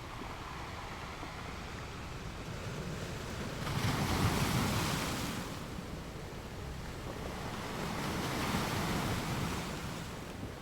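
Ocean surf: a steady wash of water with two waves swelling and fading, the louder about four seconds in and another about eight seconds in.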